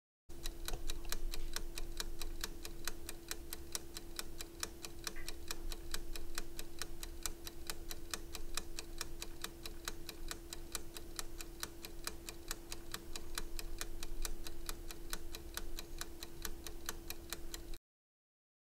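Clock-ticking sound effect: fast, even ticks over a steady tone, cutting off suddenly near the end. It fills a wait while a script runs.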